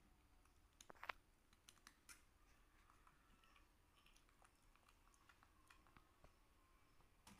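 Faint crunching and clicking of square crackers being bitten and chewed, with a sharper crack about a second in.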